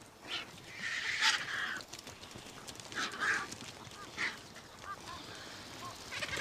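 Vultures squabbling over a carcass: several short, harsh, raspy calls, the loudest about a second in, with fainter ones after.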